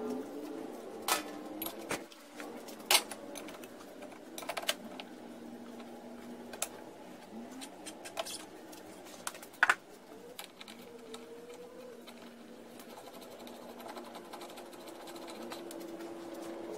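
Metal hand tools working on an outboard motor's mounting hardware: a wrench ratcheting and scattered sharp metal clinks, the loudest about three seconds in and near ten seconds. A faint wavering hum lies underneath.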